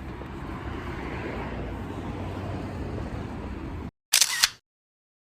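Steady outdoor street ambience with a low rumble of traffic. It cuts off suddenly near the end, followed by a brief loud burst of noise.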